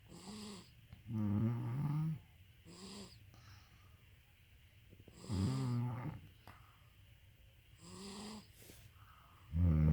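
Two sleepers snoring together: long, deep, loud snores about every four seconds, with softer, higher-pitched snores in between.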